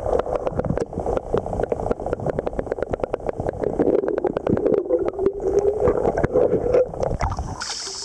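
Muffled underwater sound of river water picked up by a submerged camera: dense, fast crackling clicks and bubbling over a dull wash. Near the end the camera breaks the surface and the open-air insect chirping returns.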